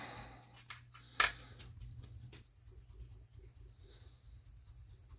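A thumb rubbing and scrubbing on an anodized aluminium bread-machine paddle, trying to rub off the brass mark left by a scratch test. There is a sharp click about a second in.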